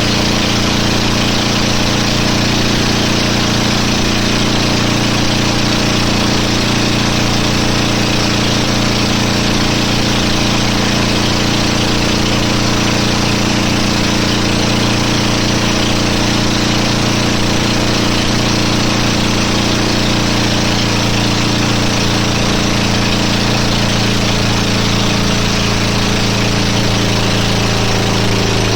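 Motorboat engine running at a steady speed, with a loud rushing noise over it; the engine's pitch shifts slightly near the end.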